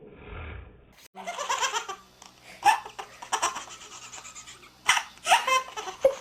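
People laughing hard in repeated bursts, starting about a second in, with a few sharp clicks between.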